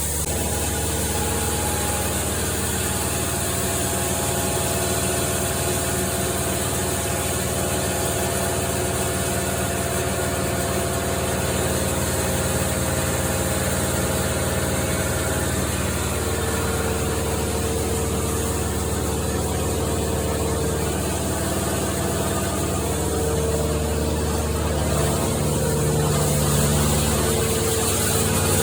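An engine running steadily at around idle, with small changes in its pitch in the second half.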